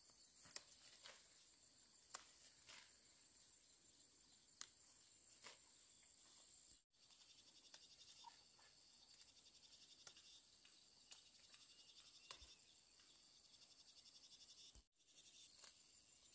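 Near silence: faint, steady high-pitched insect chirring, with a few scattered light clicks. The sound cuts out briefly twice.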